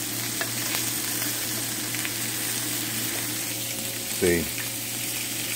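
Salmon steaks, apple pieces and onions sizzling steadily in a ridged grill pan on an electric stove.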